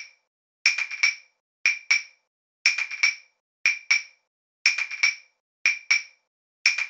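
A steady rhythm of short, dry percussive clicks, a quick group of two to four strikes about once a second, with silence between the groups.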